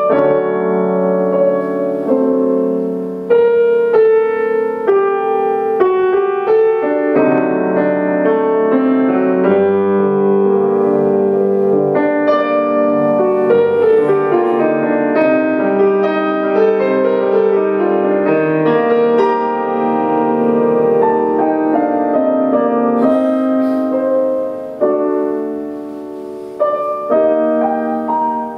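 Solo grand piano playing a fantasy: chords under a melody line, with the notes left ringing and overlapping.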